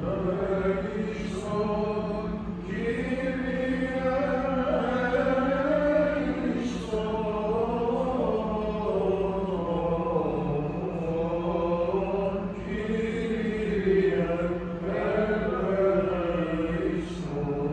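Byzantine chant of the Orthodox vespers service: a sung melodic line, one voice winding up and down in pitch with brief breaks, over a steady low hum.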